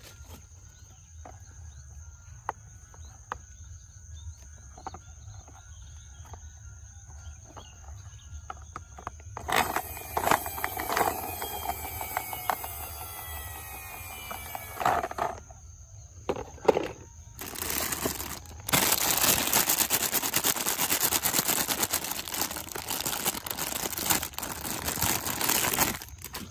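Plastic toy cars: scattered light clicks, then about ten seconds in a few seconds of loud whirring that falls in pitch. From about eighteen seconds comes a long stretch of fast, dense rattling that stops sharply near the end.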